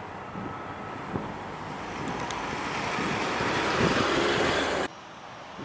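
Jet engines of a Southwest Airlines Boeing 737 climbing away at takeoff power: a steady roar that grows louder over a few seconds, then cuts off abruptly near the end.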